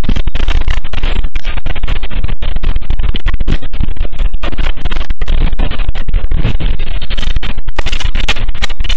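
Earthquake shaking picked up by a security camera's microphone: a loud, steady, distorted rumble and rattle that overloads the mic and keeps breaking up in brief dropouts.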